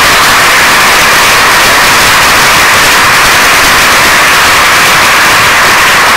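Loud, steady audience applause with a harsh, hissy edge, welcoming a lecturer to the lectern.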